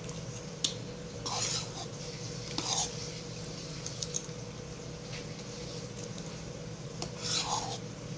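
Metal spoon clinking and scraping against a ceramic bowl and a salted egg's shell while rice porridge is eaten: a few sharp clinks and three short scrapes, over a steady low hum.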